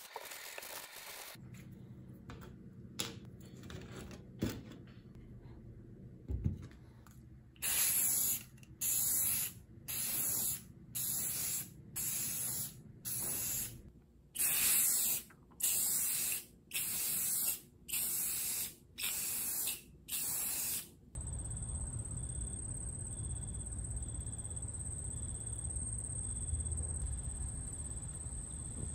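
Aerosol can of satin spray finish spraying in about a dozen short bursts, roughly one a second, each a loud hiss that cuts off sharply.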